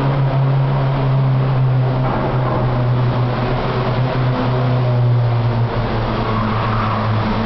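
A motor vehicle's engine running steadily as it drives through a road tunnel toward the listener: a loud, even, low drone with a hum of steady tones above it, echoing off the tunnel walls.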